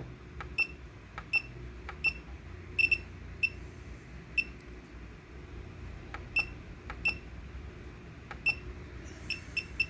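KSGER portable soldering station beeping as its buttons are pressed to step through and set its settings: a series of short, high single-tone beeps at irregular intervals, coming in a quick cluster near the end.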